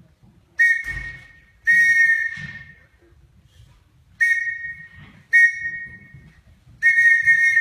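A whistle blown in five separate blasts, spelling out Morse code slowly. Each blast is a steady, shrill tone, and the last is held longest.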